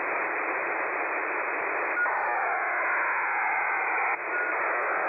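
Shortwave receiver audio on an HFDL aeronautical data channel at 11387 kHz: a steady hiss of narrow-band noise. About two seconds in it grows slightly louder, and it drops back abruptly about two seconds later, marking an HFDL data burst.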